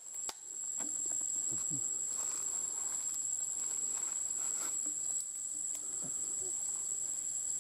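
Forest ambience: a steady high-pitched insect drone, with scattered light ticks and rustles.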